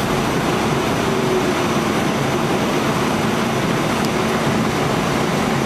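Inside an R46 subway car running at speed through a tunnel: steady loud rumble and roar of steel wheels on the rails and the car's motors.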